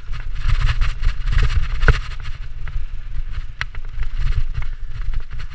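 Wind buffeting the microphone as a mountain bike descends fast over dirt singletrack, with tyre noise and the bike rattling over bumps in a stream of short clicks; a sharp knock about two seconds in.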